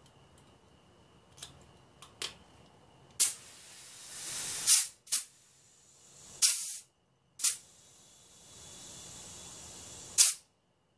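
Compressed air hissing from a tyre inflator chuck pressed on the valve stem of a motorcycle tyre. It comes in several short bursts, each starting sharply, then one longer steady hiss near the end, as the rear tyre is brought up to 28 PSI. A few light clicks come before the first burst.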